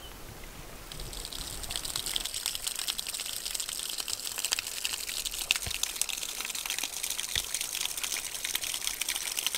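Water splashing and trickling: a dense, steady fizz of small splashes and drips that sets in about a second in, as the kayak moves through the water.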